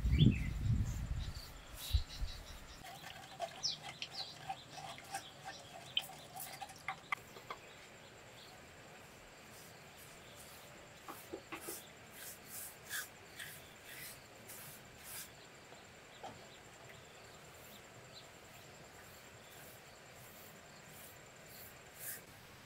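Light handling of wood and bamboo: a low rumble of movement at the start, then scattered small taps and clicks as a bamboo strip is fitted to a roof beam under a thatched roof. Faint outdoor bird and insect sounds run underneath.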